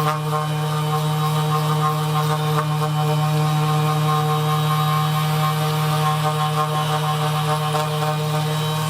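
Background music: a steady, low, didgeridoo-like drone with overtones, unbroken throughout.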